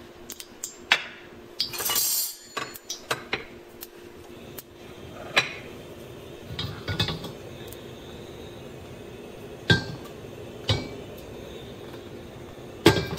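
Kitchenware clinking and knocking now and then as bowls and utensils are handled around a wok, with a brief hiss about two seconds in and a faint steady hum underneath.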